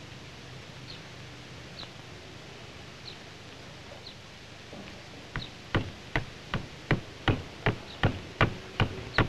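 Steady film-soundtrack hiss. About halfway through, a very regular run of sharp thuds starts, about two or three a second, from a boxer's training blows.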